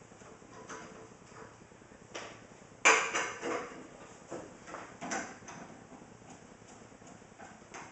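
Metal clanks and clinks of a tire iron and lug nuts as the lug nuts are loosened and taken off a car wheel, with the loudest clank about three seconds in and a few lighter knocks after it.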